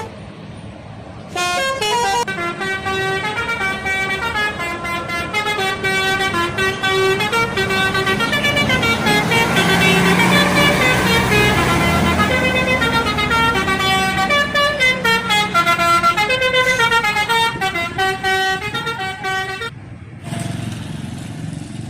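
Bus telolet horn playing a long tune of quickly changing notes, with the bus's engine swelling underneath midway. The horn stops about 20 seconds in, leaving road noise.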